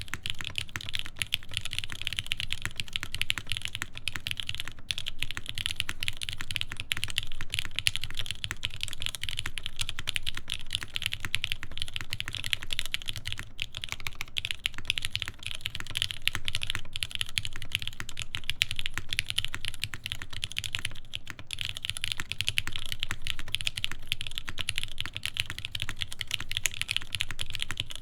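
Continuous fast typing on a TGR Jane v2 CE mechanical keyboard with lubed Cherry MX Black linear switches, a carbon fiber plate and GMK keycaps: a dense, steady run of keystrokes.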